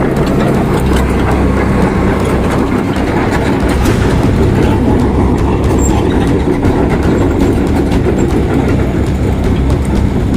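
A heavy diesel vehicle running steadily under a loud, continuous rattling clatter with scattered clicks.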